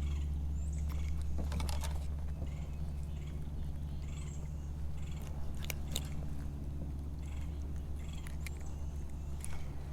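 A steady low hum runs throughout, with scattered light clicks and knocks over it.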